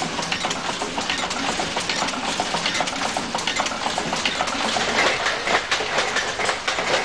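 Pedal-powered Harris Tweed loom running: a rapid, continuous mechanical clatter of its moving parts.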